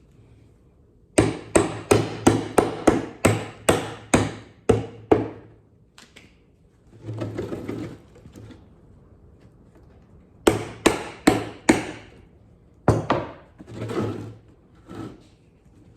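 Snap-on hammer driving finishing nails into a wooden birdhouse roof: a quick run of about ten sharp strikes, a short scrape, then another run of about five strikes and a few scattered taps near the end.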